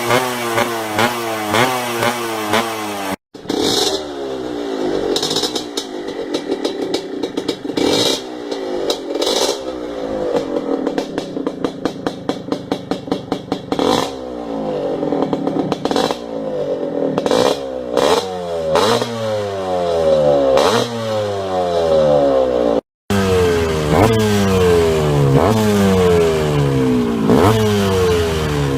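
Yamaha DT 125 two-stroke single-cylinder engine being revved over and over, its pitch rising in repeated quick runs. The sound cuts out briefly twice.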